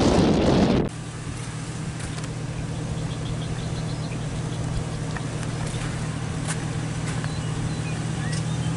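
Wind buffeting the microphone, cut off abruptly about a second in. After that, a vehicle engine idles with a steady low hum.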